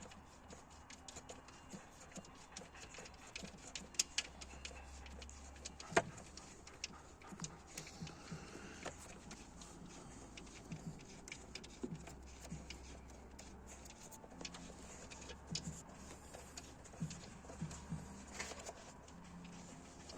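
Irregular clicks and knocks of hand tools working on the car, over a faint steady low hum. The sharpest knocks come about four and six seconds in.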